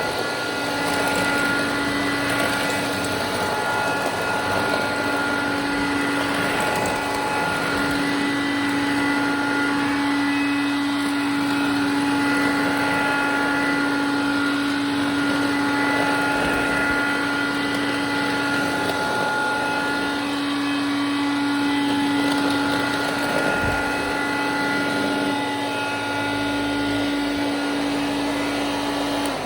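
Hoover Dial-A-Matic 1136 clean-air upright vacuum cleaner, with its 840-watt motor, running steadily on high suction while vacuuming the floor. It gives a constant motor whine of unchanging pitch over a rushing of air.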